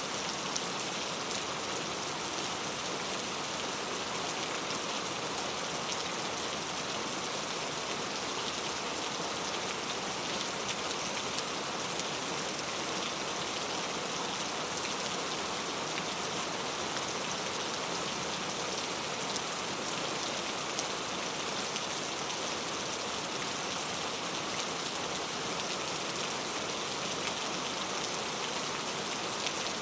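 Heavy rain falling steadily, a dense even hiss of drops on a hard surface with fine drop ticks.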